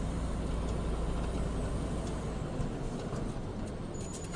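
Steady low rumble of a semi truck's diesel engine and road noise inside the cab while driving, easing slightly toward the end.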